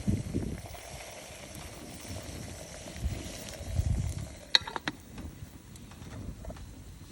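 Low rumbling gusts of wind on the microphone, with a single sharp metallic clink that rings briefly about four and a half seconds in.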